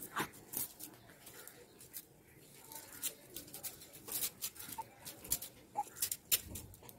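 Cloth rustling and soft scratchy clicks as a baby's clothes are pulled on and adjusted, with two brief faint squeaks about five and six seconds in.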